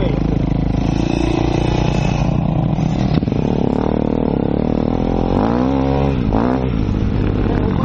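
Enduro motorcycle engine running steadily as the bike moves off across grass, with the revs rising and falling once about five to six seconds in.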